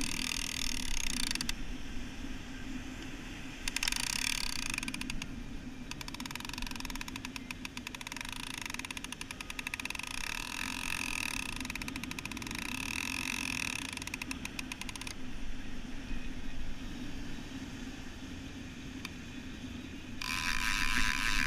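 Overhead surf reel's clicker ratchet buzzing as line is pulled off it, a fish running with the bait. The buzzing comes in several runs, the longest lasting about nine seconds through the middle, and starts again near the end.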